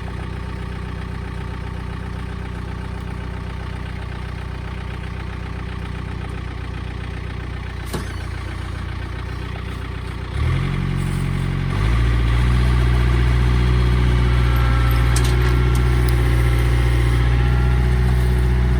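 Tractor engine idling steadily, then revving up about ten seconds in and settling a second later at a higher, louder throttle, as it starts pulling a chained log.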